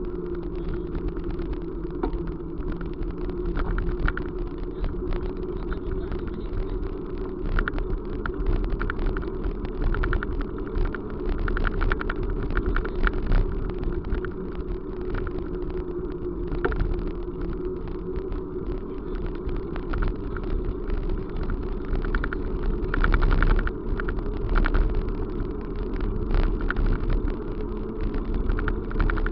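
Steady running noise of a moving vehicle: a constant low hum with frequent small clicks and rattles.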